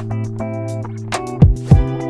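Background music: sustained chords over a bass line with a drum beat, including two heavy low drum hits about a second and a half in.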